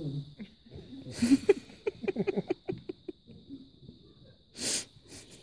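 Theatre audience laughing, with spectators close by giving quick breathy bursts of laughter that rise about a second in and die away. Near the end comes one short breathy snort or sniff. A faint, steady high whine runs underneath.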